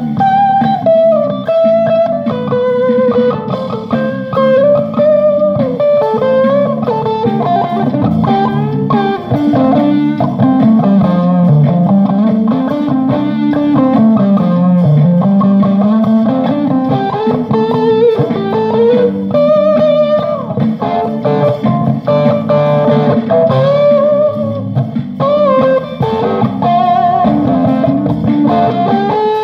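Electric guitar jam: a continuous improvised melodic line played over lower notes.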